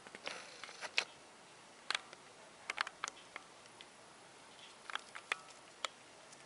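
Baby rat's claws ticking and scratching on newspaper: faint, irregular clicks, some in quick clusters, with a soft paper rustle near the start.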